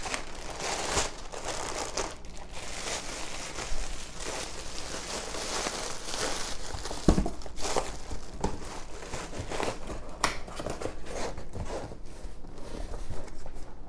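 Plastic bubble wrap crinkling and rustling as it is handled and pressed into a cardboard box, with scattered clicks and a single knock about halfway through.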